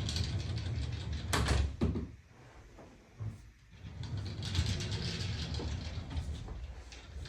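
Wardrobe sliding doors running along their tracks with a low rumble, with a sharp knock about a second and a half in.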